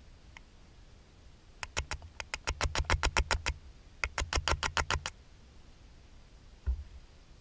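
Fishing reel ratchet clicking in two quick, even runs of about seven or eight clicks a second, the second run shorter. A soft knock follows near the end.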